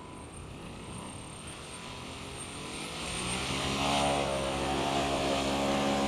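The twin electric-motor rotors of a 3D-printed V-22 Osprey model tiltrotor throttling up for a test flight. The propeller drone rises in pitch and grows louder about three seconds in, then holds steady.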